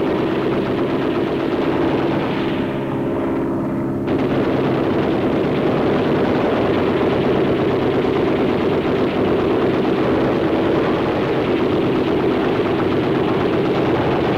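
Continuous rapid machine-gun fire over the steady drone of aircraft engines. The gunfire drops away for about two seconds a couple of seconds in, leaving the engine drone, then resumes abruptly.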